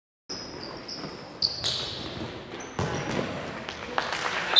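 Indoor futsal play in a gym hall: sneakers squeaking on the hardwood floor and the ball being kicked and bouncing several times, with a hall echo. It starts after a split-second of silence.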